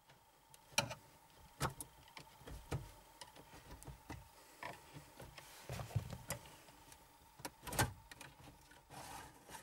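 Sharp metal clicks and scrapes from old nails pushed into the release holes in the corners of a Blaupunkt car stereo's front panel, standing in for the special removal levers to unlatch the unit, and the stereo's sheet-metal case sliding out of the dashboard slot. The clicks come at uneven intervals, the loudest near the end.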